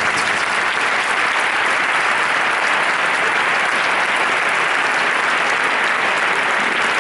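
Audience applauding steadily at the end of a band's performance, a dense, even clapping with no music left under it.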